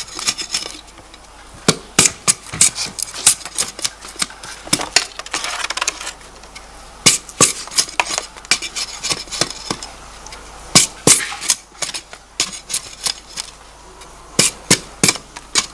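A knife peeling the rind off a stalk of sugarcane: irregular sharp cracks and knocks, some in quick runs, with short stretches of scraping.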